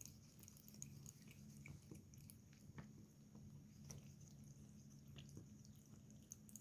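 Near silence: a low steady room hum with faint, scattered small clicks.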